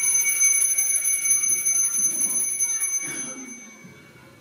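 A shrill bell ringing in a rapid continuous trill, fading out about three seconds in, rung to announce the start of the puppet show. Children's voices stir faintly as it dies away.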